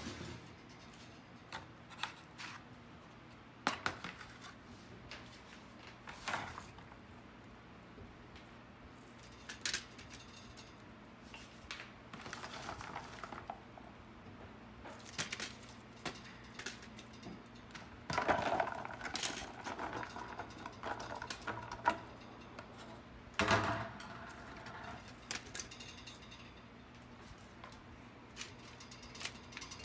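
Kitchen handling sounds: scattered clicks, knocks and rustling clatters as sliced onions are spread from a glass bowl over steaks in a foil-lined baking pan, with a low steady hum underneath. The loudest clatters come about 18 and 23 seconds in.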